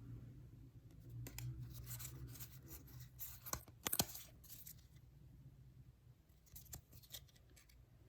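Pokémon trading cards being handled and slid one behind another: a scatter of short crisp snaps and rustles, loudest about four seconds in, over a low steady hum.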